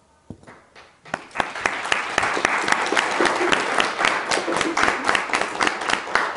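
Audience applauding: a few scattered claps at first, then full applause from about a second in, thinning near the end.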